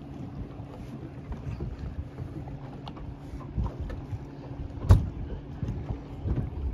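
Wind on the microphone and river water slapping around a small fishing boat, over a steady low hum. A single sharp knock about five seconds in is the loudest sound.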